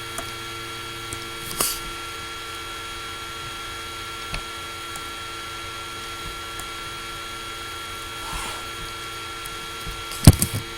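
Laptop cooling fan running steadily with a whine at a few fixed pitches, picked up loud by the laptop's own microphone. A few faint clicks are heard, and a sharp knock comes near the end.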